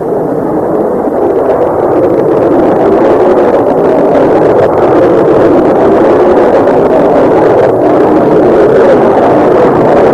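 Jet bomber's engines at full takeoff power: a loud, steady rushing noise that swells over the first two seconds and then holds.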